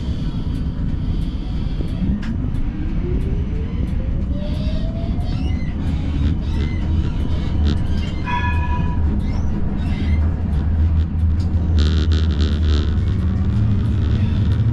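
Siemens Combino tram running on its rails with a steady low rumble, its electric traction drive whining upward in pitch as it accelerates during the first few seconds. A short beeping tone sounds about halfway through, and a brief rattle comes near the end.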